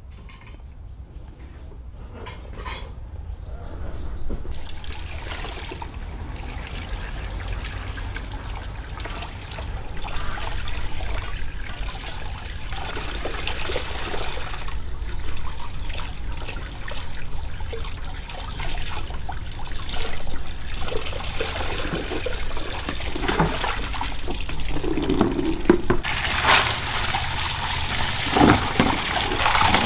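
Water pouring and trickling.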